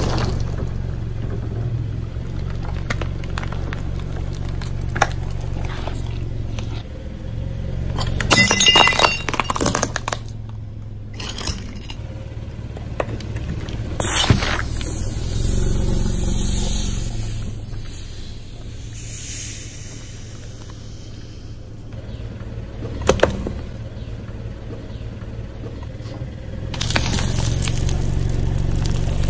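Vehicle engine running low and steady while its tyres roll over and crush objects. A clinking, shattering burst comes about nine seconds in, a sharp crack around fourteen seconds, and more crunching near twenty-three seconds and again near the end.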